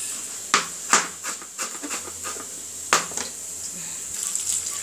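Chef's knife chopping soft thawed tomato on a plastic cutting board: a handful of sharp, irregular knocks, the loudest about half a second, one second and three seconds in. Under them runs a steady high hiss from onions frying in the pan.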